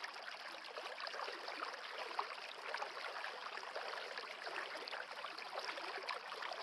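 Steady rushing noise like a running stream, with faint small ticks scattered through it.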